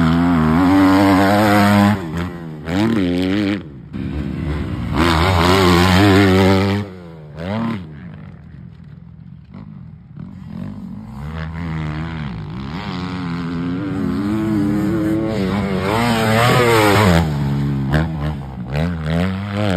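Motocross dirt bike engine revving hard around a track, its pitch climbing and falling again and again with throttle and gear changes. It is loud as the bike passes close near the start, about a third of the way in, and again near the end, and fainter in between as it moves away.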